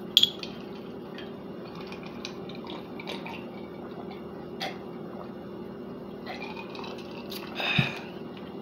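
Small handling clicks and sips as a drink is taken from a stemmed wine glass, over a steady low hum. There is a sharp click just after the start and a louder knock near the end.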